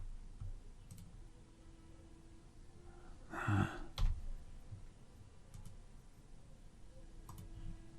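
Sparse computer mouse clicks and keyboard taps, with a short breathy exhale about three and a half seconds in.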